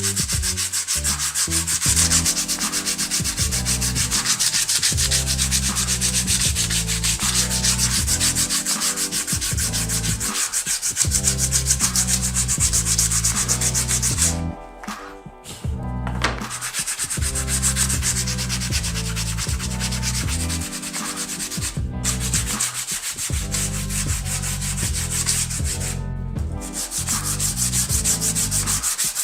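Wood being sanded, a steady rubbing, with brief pauses about halfway through and again later.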